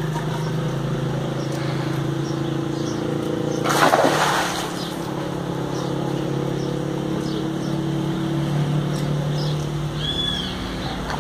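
A steady motor hum that fades out near the end, with a short loud burst of noise about four seconds in and a brief high chirp near the end.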